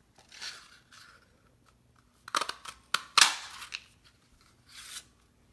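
Handheld bat-shaped craft paper punch snapping through paper: several sharp clicks a little over two seconds in, the loudest about three seconds in, with paper rustling before and after.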